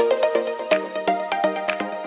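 Background electronic music with a steady beat and synth notes.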